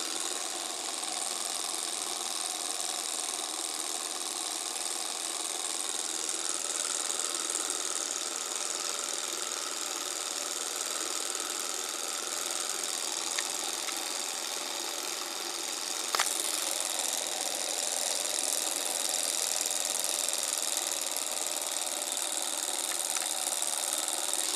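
Tiny alcohol-fired Stirling engine running fast: a steady, even mechanical clatter from its spinning flywheel, crank and pistons. There is one sharp click about two-thirds of the way through.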